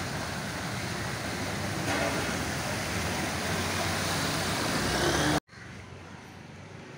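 Motor vehicles driving through floodwater: a steady rush of engine noise and splashing that grows louder as a motorcycle ploughs through close by, throwing up spray. It cuts off suddenly about five and a half seconds in, leaving quieter outdoor background noise.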